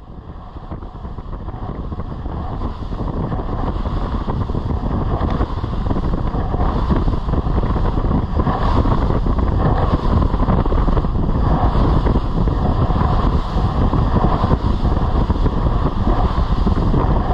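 A fishing boat running on open water, with the engine and water noise and wind buffeting the microphone. The sound fades in over the first few seconds, then holds steady.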